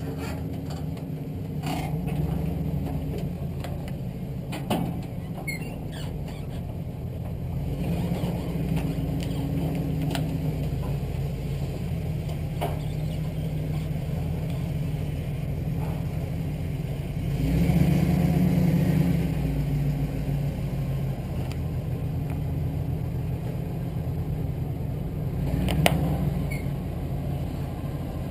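Pickup truck engine running at low speed while it maneuvers a loaded car trailer, swelling louder for a couple of seconds a little past halfway. A few sharp clicks sound over it, the loudest near the end.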